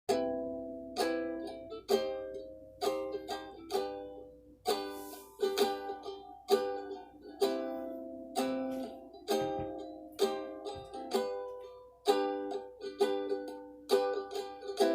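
Instrumental song intro: an acoustic plucked string instrument strumming chords about once a second, each chord ringing and fading before the next.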